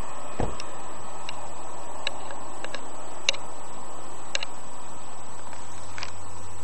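Steady rush of a fast-flowing creek, with a thump near the start and a dozen scattered sharp clicks over it.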